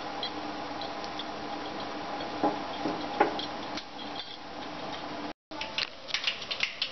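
A pot of sambar simmering on a gas stove: a steady low hiss with scattered small ticks, and two sharper knocks about two and a half and three seconds in. Near the end, after a brief dropout, comes a run of metal clinks from the pan and its utensils.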